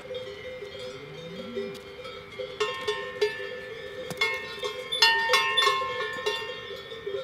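Cowbells clanking, several bells of different pitches ringing irregularly over a low steady ring, getting louder and busier from a couple of seconds in.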